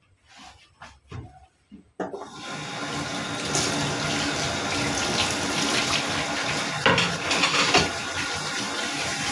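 A few light knocks, then a kitchen tap turned on about two seconds in, with water running steadily into the sink. The splashing is louder twice near the end.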